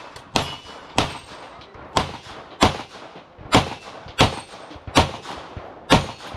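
A string of pistol shots, about eight in six seconds at an uneven pace, each a sharp crack with a brief echo.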